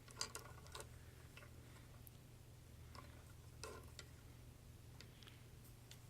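Faint, scattered clicks and taps of small plastic toy parts being handled and pressed together, over a low steady hum.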